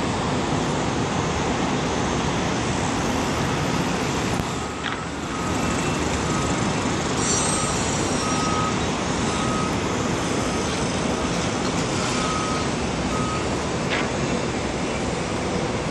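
Steady rushing noise of wind and road traffic heard from high above, with a vehicle's reversing alarm faintly beeping in a run of short, evenly spaced beeps through the middle.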